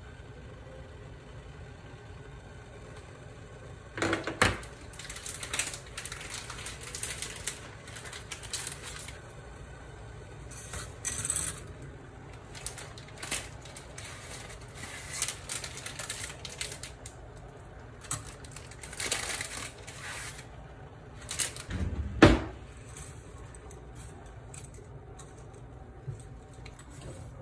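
Kitchen handling sounds: dry spaghetti clicking, rattling and rustling as it goes into a steel pot of hot water, then kitchen tongs working it in the pot. There is one loud knock about 22 seconds in, over a steady low hum.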